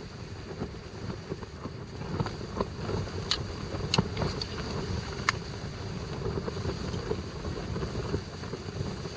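Strong wind buffeting the tent, a steady rushing noise. Three sharp metal clinks from a ladle against the cook pot come between about three and five seconds in.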